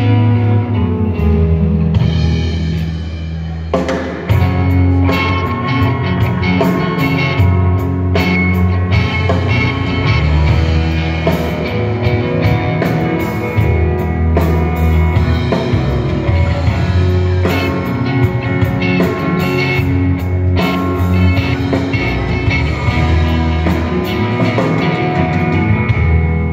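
Live rock band playing amplified through a PA during a soundcheck: electric guitars over a drum kit.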